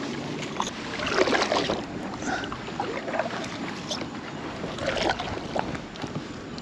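Scattered knocks and clicks of gear being handled in a plastic fishing kayak, over wind noise on the microphone.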